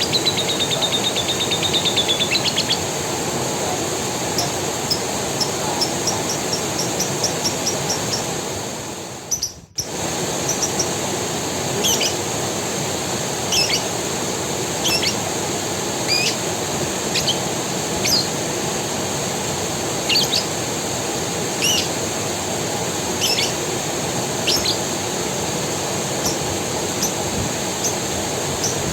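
Forest creek water running steadily, with birds calling over it: a fast trill in the first few seconds, then short sharp chirps every second or two. The sound drops out briefly a little before halfway, then resumes.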